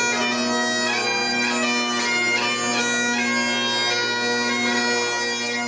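Bagpipes playing a tune: a steady drone underneath, with the chanter's melody moving from note to note above it.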